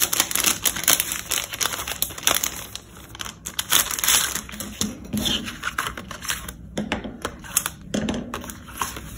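Thin clear plastic packaging crinkling and rustling as it is handled and opened and a cardboard brush card is slid out of it, with a few sharp clicks in the second half.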